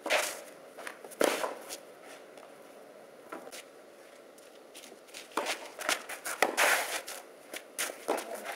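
Tennis rally on a clay court: racquets strike the ball with sharp pops, two loud hits about a second apart near the start, then a busy stretch of quick footsteps and shoe scuffs on the clay mixed with further hits.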